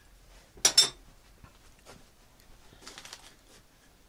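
A sharp metallic clink and clatter about half a second in, then fainter clinks near three seconds: small metal tools or parts knocking together as they are handled.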